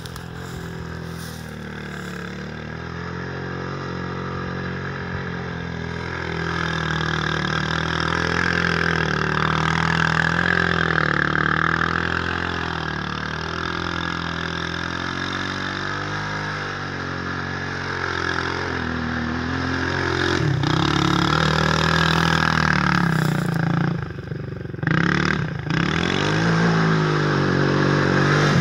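Lucky Star SP250 quad's engine revving up and down as the quad rides over sand, its pitch rising and falling with the throttle. It grows louder over the stretch, with a brief drop about three-quarters through.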